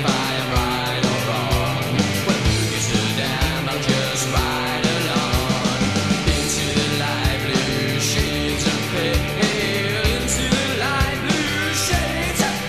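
Gothic rock song playing: a full band with a steady drum beat and a heavy bass line.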